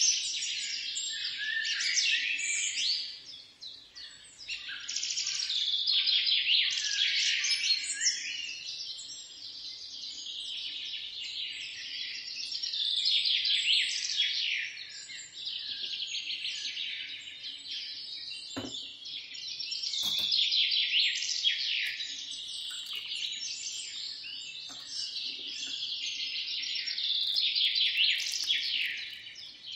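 Small birds chirping and singing together, a dense run of quick falling chirps that swells and fades in waves. Two sharp clicks sound about two-thirds of the way through.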